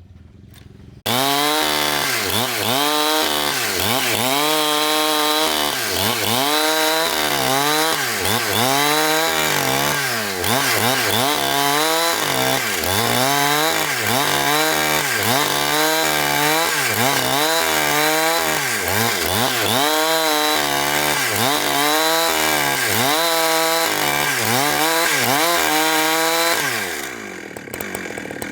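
Petrol chainsaw cutting into timber, its engine pitch rising and falling over and over, about once a second. It comes in abruptly about a second in and winds down near the end.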